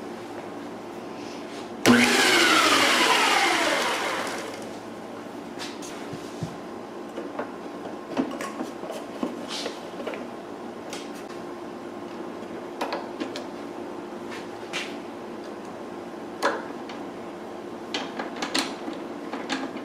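An electric motor spins down: a sudden loud whine whose pitch falls steadily and fades over about two seconds. It is followed by scattered light clicks and knocks of plastic and metal parts being fitted.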